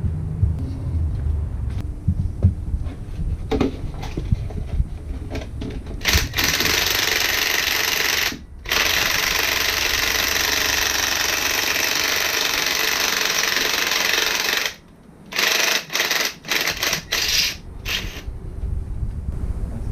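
Pneumatic air tool run in a long steady burst, then in short trigger blips near the end, with knocks and clanks of work on an engine before it starts.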